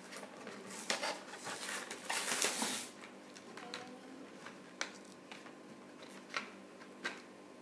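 Packaging being opened by hand: rustling and crinkling, loudest about two seconds in, followed by a few sharp clicks.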